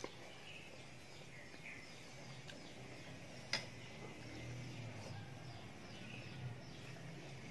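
Quiet eating at a table: a spoon clinks once against the noodle bowl about three and a half seconds in, over faint high chirping and a low hum in the background.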